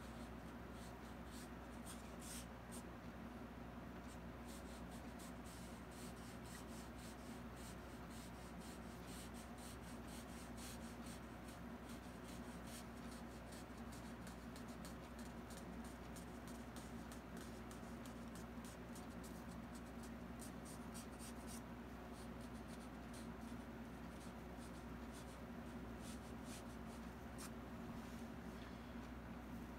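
Faint, scratchy strokes of a fine paintbrush on canvas, many short light strokes laying in thin strands of hair, over a steady low hum.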